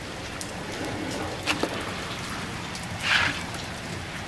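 Tap water running from a garden hose into a pot with a steady pattering hiss and small ticks, with a brief louder rush of water about three seconds in.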